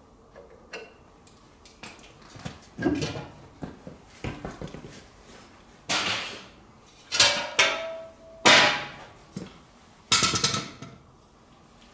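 Irregular metal clanks and knocks of workshop steel being handled, about half a dozen loud ones, some ringing briefly.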